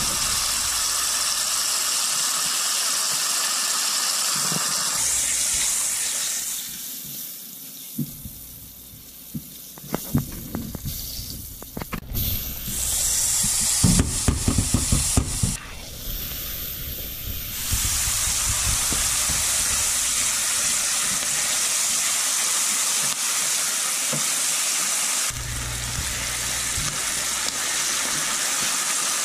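Salt pork and salt beef sizzling in hot oil in a stainless steel frying pan, a steady hiss. About a third of the way in the sizzle dips, then a run of clatters and knocks as diced onion is tipped into the pan, and the frying sizzle carries on.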